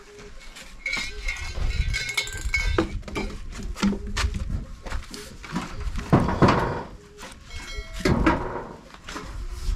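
An animal calling in two spells, a couple of seconds long near the start and briefly near the end, among knocks and scraping of things being moved about.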